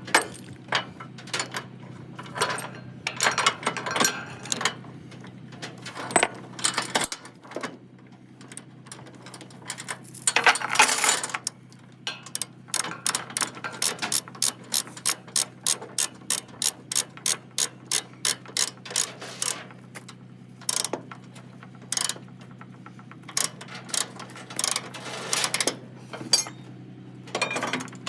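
Ratchet chain binder being cranked to tighten a load-securement chain on a flatbed. Its pawl clicks in repeated strokes, with an even run of about two to three clicks a second midway. A louder clattering patch comes shortly before that run.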